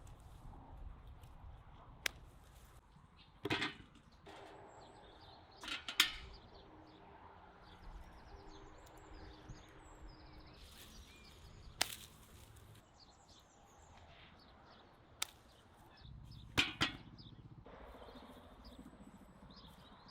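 Scattered sharp knocks and taps, about six spread a few seconds apart, typical of a knife or utensils being handled while preparing fish.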